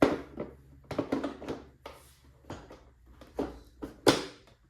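Irregular knocks, clicks and rustles of motorcycle fairing and trim parts being handled and fitted, about eight in all, the loudest right at the start and about four seconds in.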